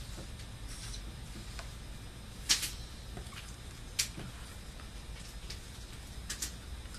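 A felt-tip marker making a few short scratches and taps on paper, the sharpest about two and a half seconds in and another at four seconds, over a steady low hum.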